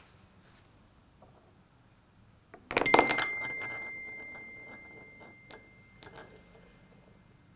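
A marble rolling onto the metallophone keys of a wooden Kugelbahn Chime marble run: nearly three seconds in, a quick clatter of clicks and one bright chime note that rings on and slowly fades. A few small clicks of the ball on the wooden blocks follow.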